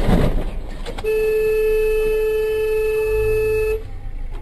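Car horn held in one long, steady blast of nearly three seconds, starting about a second in, over engine and road noise.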